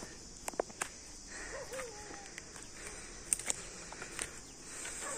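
Steady high-pitched insect chorus, with scattered sharp clicks and a few short, faint calls that bend in pitch.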